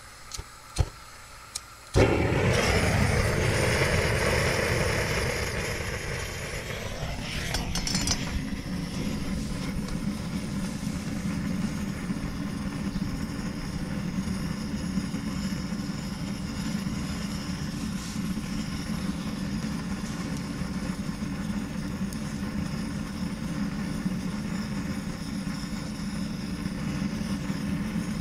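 A few clicks, then about two seconds in a propane torch (weed burner) lights with a sudden loud rush of gas flame. The hissing flame runs steadily and, after several seconds, settles into a lower, steady rumble as it burns into the smoker's firebox.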